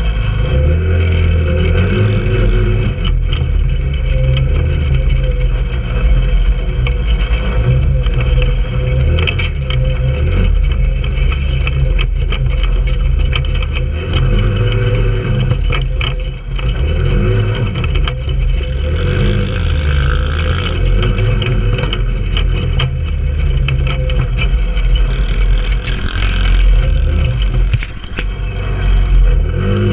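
Trailmaster 150 go-kart's single-cylinder four-stroke engine running under throttle as the kart drives over rough dirt. Engine speed rises and falls, with rattles and knocks from the bumps.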